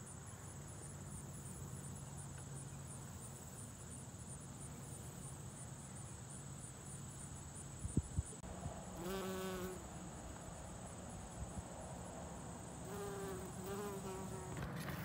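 Bumblebee buzzing as it works the flowers, louder in two short stretches about nine and thirteen seconds in, over a steady high-pitched insect trill that stops shortly before the end. A few soft knocks about eight seconds in.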